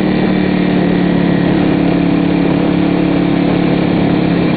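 Motorcycle engine running at a steady cruising speed, its hum holding one pitch throughout, under a steady rush of wind noise from riding at road speed.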